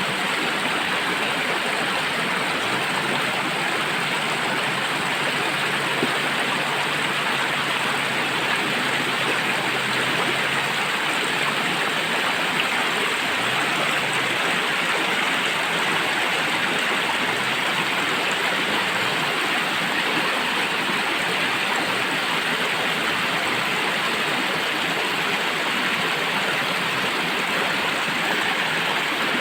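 Water of a stream rushing and splashing over rocks, a steady even rush with no change throughout.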